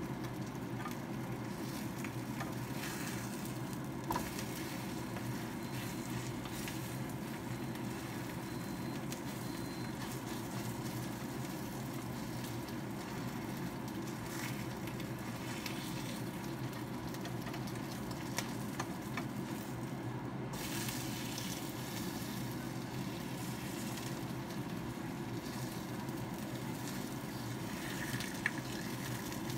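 Boneless chicken thigh pieces sizzling as they fry in oil in a pan, with a steady crackle. A few light clicks of a plastic spatula against the pan as the pieces are stirred.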